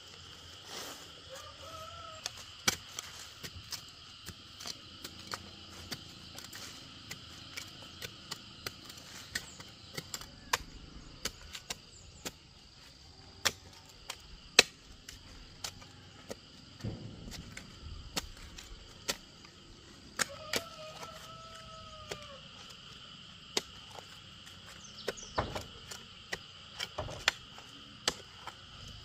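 Irregular sharp strikes of a hand hoe chopping into soil and stones, over a steady high chirring of insects.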